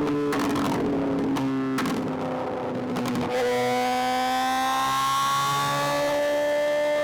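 Suzuki GSX-R 750 inline-four engine from the rider's position. For about the first three seconds the revs fall off, with irregular crackling and popping. Then the revs climb steadily as the bike accelerates.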